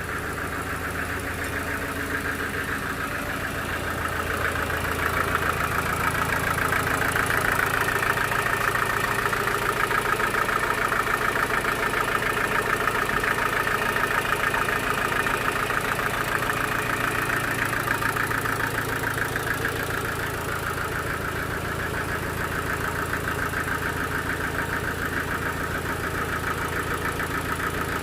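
Sawmill machinery running steadily with an engine-like hum, growing louder for about fifteen seconds in the middle and then easing back.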